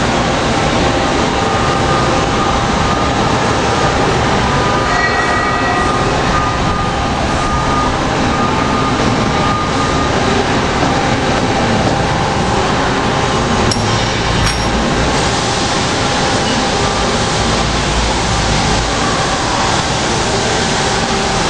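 Steady, loud running noise of industrial machinery on a metal-working shop floor, with faint high whines mixed in.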